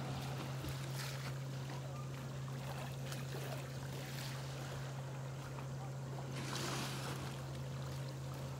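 Lakeshore ambience: a steady low hum under a faint wash of water, with a few small ticks and a brief hiss about six and a half seconds in.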